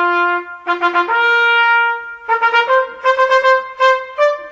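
Music: a solo brass melody, a couple of long held notes followed by a run of short, quick notes.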